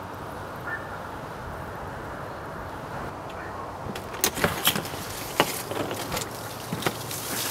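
An exterior door with a glass panel being unlatched and pushed open: a run of sharp clicks and knocks starting about four seconds in, over a steady background rumble.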